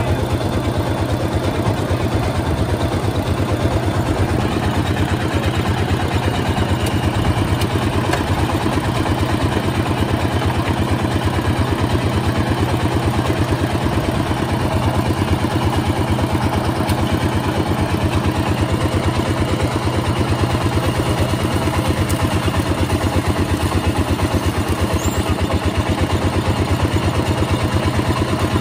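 Small engine driving a sugarcane juice crusher, running steadily with a rapid, even thump.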